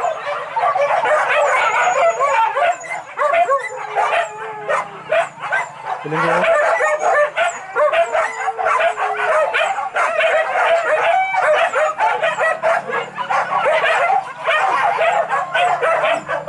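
A pack of boar-hunting dogs baying and yelping without a break, many voices overlapping.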